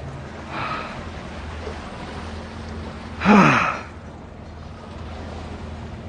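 A person's single drawn-out vocal sound with a falling pitch, like a loud sigh or "ahh", a little over three seconds in, after a fainter one near the start. Under it runs a steady low hum from the boat.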